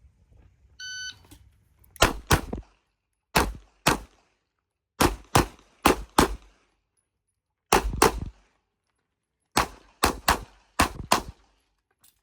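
An electronic shot-timer beep about a second in, then a string of rapid handgun shots, mostly fired in quick pairs, with pauses of a second or more between groups as the competitor moves through an IPSC stage.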